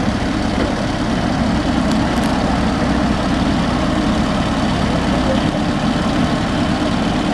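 Backhoe loader's diesel engine running steadily with a heavy, low rumble.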